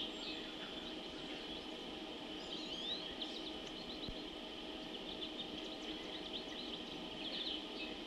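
Wild birds singing and calling over a steady high-pitched background drone, with quick rising notes about two and a half seconds in and a run of rapid short notes near the end.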